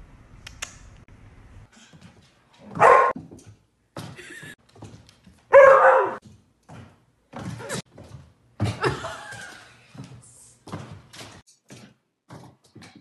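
A dog barking: two loud barks about three seconds apart, then a string of quieter barks, mixed with short knocks and thumps.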